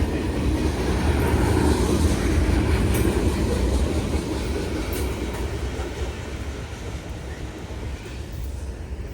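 Norfolk Southern freight train rolling past over a grade crossing: a steady rumble of railcar wheels on the rails, with a few faint clacks, slowly fading.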